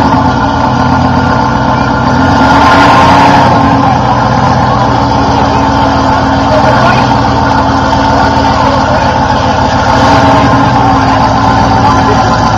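Rock-crawling buggy's engine running under throttle as it climbs a rock ledge, swelling a little louder about three seconds in, then running steadily.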